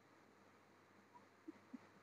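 Near silence: faint room hiss, with two tiny soft ticks near the end.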